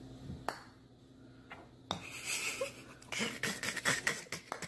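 Sharp clicks of a putter striking golf balls and balls knocking together on an indoor putting mat: single clicks about half a second and two seconds in, then a quick run of clicks near the end.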